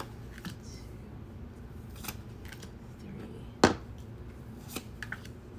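Romance Angels oracle cards being dealt off the deck and laid down on a board: a few light clicks and snaps of card stock, the loudest one about three and a half seconds in.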